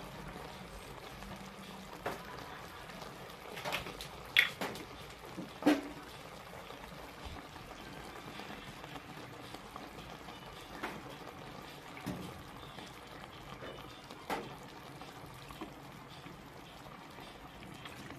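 A steel pot of vegetables cooking on a gas burner with a steady low hiss, liquid poured from a plastic bottle over a wooden spoon into the pot, and a handful of sharp knocks of the wooden spoon against the pot, the loudest between about four and six seconds in.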